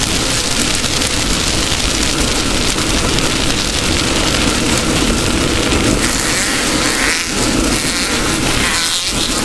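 Off-road race car running hard at speed: a loud, steady drone of engine, wind and rough-terrain noise. The low end eases briefly twice, about seven and nine seconds in.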